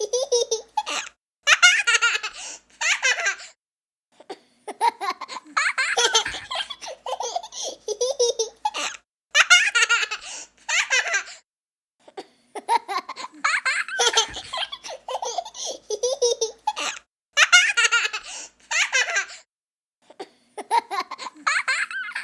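A young child laughing, high-pitched giggles in bursts of a second or two with short pauses between them.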